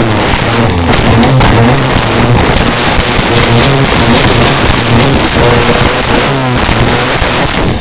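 Polaris Pro 785 personal watercraft's two-stroke engine running hard at speed, its pitch rising and falling as it bounds over choppy waves, over a steady rushing noise.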